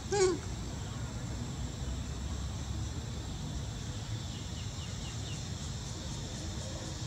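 Outdoor ambience with a steady high insect drone over a low rumble. About a quarter second in, a single short, high squeaky call cuts in and is the loudest sound; a few faint chirps come near the middle.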